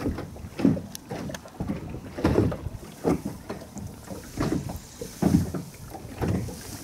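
Small waves slapping irregularly against the side of a boat, with wind gusting on the microphone.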